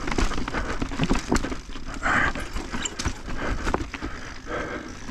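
Mountain bike rattling and clunking over rock chunks on a rough descent: tyres striking rock and the bike's frame and chain knocking in quick, uneven hits, over a low wind rumble on the microphone.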